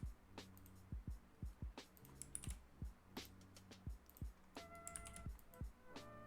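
Computer keyboard keys clicking irregularly, about two a second, as modelling shortcuts are pressed, over faint background music.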